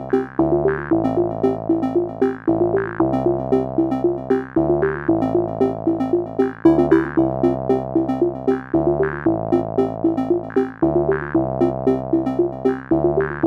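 Electronic synthesizer music: a quick repeating run of notes over a bass line that changes about every one to two seconds.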